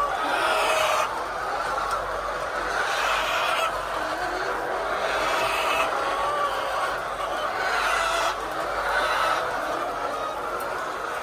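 A large flock of laying hens clucking and squawking together in a poultry shed: a continuous, dense din with louder swells every second or two.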